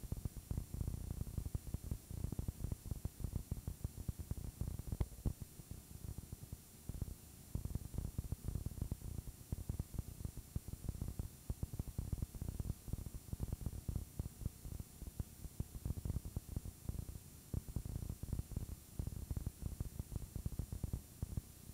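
Static-like noise: a dense, irregular low crackle and rumble under a steady hiss.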